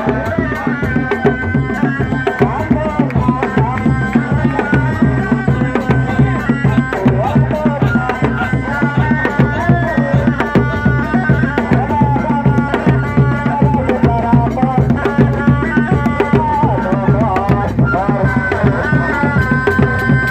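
Sundanese reak ensemble music: dogdog drums playing a dense, driving rhythm with a wavering melody line above.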